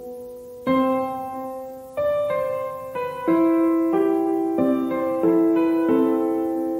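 Background piano music: soft chords and single notes, each struck and left to ring and fade, a new one every half second to a second.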